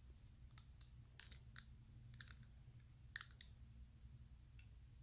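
Faint, irregular clicks and taps of plastic LEGO bricks being handled and pressed into place.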